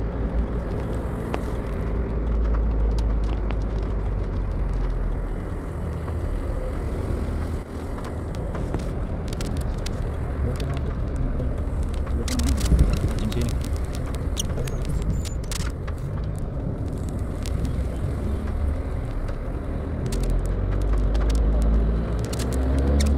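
Car driving in the rain, heard from inside the cabin: a steady low rumble of road and engine noise, with scattered sharp ticks.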